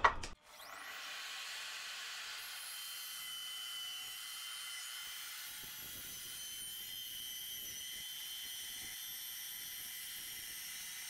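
Evolution sliding mitre saw spinning up with a rising whine, then running with a steady high whine and hiss as its blade cuts through aluminium angle.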